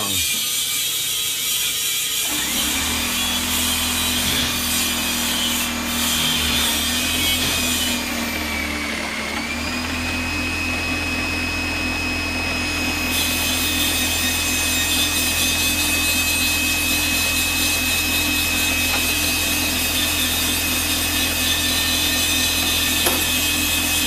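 A motor-driven shop machine running with a steady hum and a thin high whine; the whine sags and comes back up about nine seconds in. It starts about two seconds in, after some lighter rubbing and clicking.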